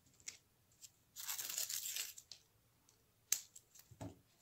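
A strip of green floral tape being torn, a rasping noise lasting about a second, then a sharp click and a soft knock near the end.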